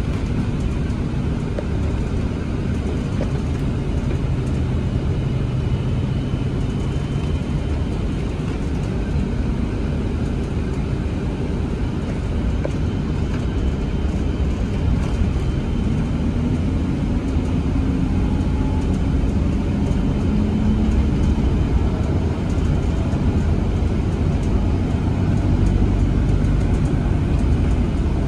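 Inside a city bus under way: a steady low rumble of engine and road noise, with the engine note rising partway through.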